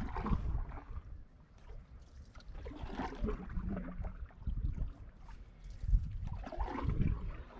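Canoe paddle strokes in calm lake water, each stroke a swell of splashing and gurgling, about every three seconds, with water trickling off the paddle between strokes.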